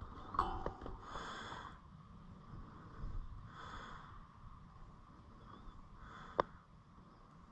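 Close, slow breathing through the nose, one breath about every two and a half seconds, with a single sharp snap about six seconds in.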